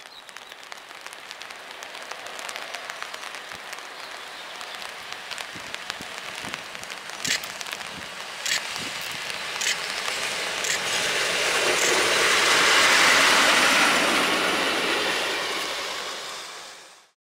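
EP07 electric locomotive running light and passing at speed. Its rolling noise builds to a peak about thirteen seconds in, then fades. In the middle comes a row of sharp clicks about a second apart.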